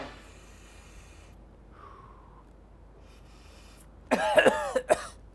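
A man coughs and clears his throat, loud and brief, about four seconds in, after a faint steady hiss.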